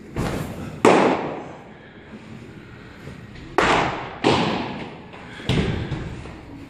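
Pitched baseballs popping into catchers' mitts five times, each sharp pop trailing off in an echo.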